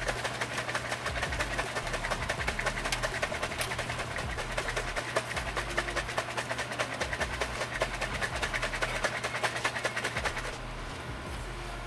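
Plastic shaker bottle of meal-replacement shake being shaken hard and fast, the liquid and powder sloshing and knocking in quick strokes, several a second. The shaking stops near the end.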